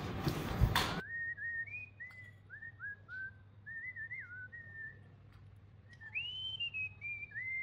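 A person whistling a slow tune in single clear notes, with scooping slides between them and a longer note that rises and falls near the end. It follows a noisy rustle in the first second.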